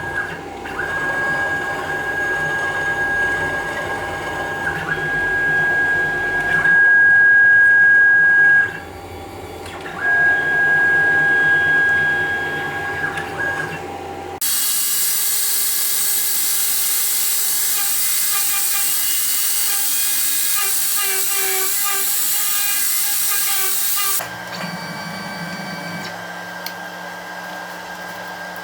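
A small CNC router's motors whining in steady high tones as the machine moves, in several runs with short breaks between them. About halfway through, a louder steady rushing noise starts, runs for about ten seconds and cuts off suddenly, leaving a low hum.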